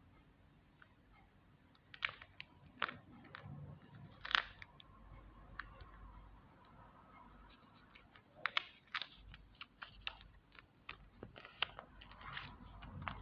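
Irregular crinkles and crackles of a handmade paper squishy book being handled, with a few louder snaps scattered through.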